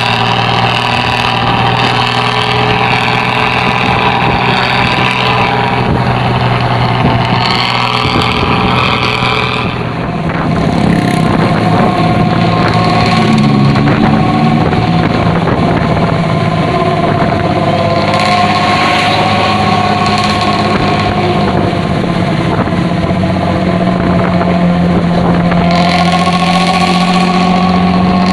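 Diesel engine of a Luragung intercity bus running loud, with a deep rumbling 'snoring' exhaust note (knalpot ngorok). The note dips and shifts in pitch about ten seconds in, then runs steady again.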